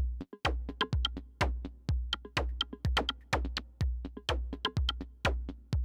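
Electronic intro music with a drum-machine beat: deep bass kicks under sharp percussion hits in a steady rhythm.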